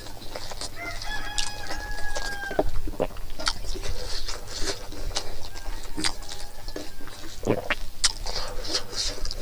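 A rooster crows once, a long held call starting about a second in and lasting about two seconds. Close, sharp clicks of chewing and eating by hand run throughout.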